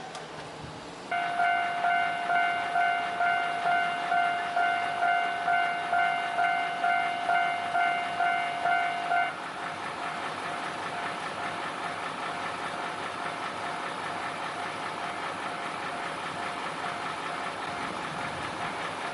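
Japanese level-crossing warning bell starts about a second in, ringing a clear ding about twice a second. After about eight seconds it drops to a much lower volume, and the running noise of an approaching Ohmi Railway train slowly builds.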